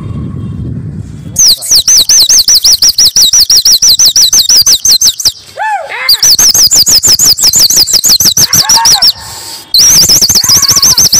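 Shrill trilled whistling, a rapid warble of high notes repeated many times a second in three long runs with short breaks between them, the kind used by pigeon flyers to work a flock circling overhead.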